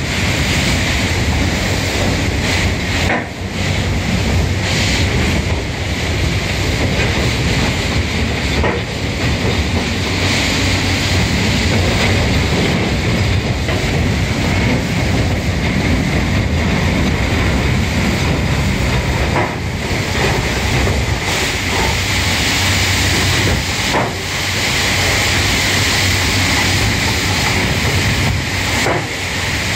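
Steady, loud mechanical noise with a hiss from a crane-mounted hydraulic brush-cleaning machine working inside an open coal gondola wagon. Its brush rollers sweep the walls while the crane's hydraulics run. The noise dips briefly a few times.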